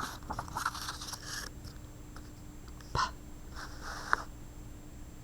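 Faint scratchy rustling and rubbing of paper as a picture book's page is handled and turned, with a small sharp click about three seconds in. A faint steady hum sits underneath.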